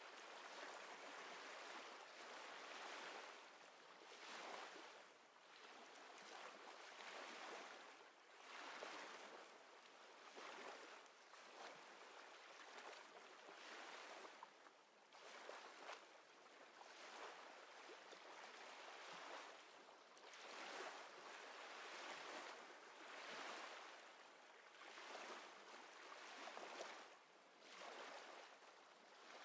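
Faint, soft rushing noise that swells and fades every couple of seconds, like gentle lapping surf.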